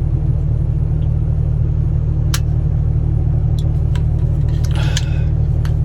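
Steady low rumble of a parked semi truck's diesel engine idling, with a few light clicks.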